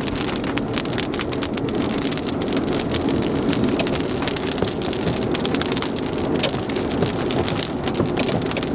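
Rain hitting a car's windshield, heard inside the cabin while driving: many sharp ticks of drops on the glass over a steady hum of road and engine noise.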